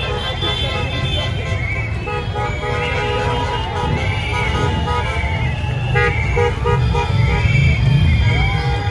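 Band music from the passing parade, with sustained horn-like tones and a wavering melody, over a crowd's chatter.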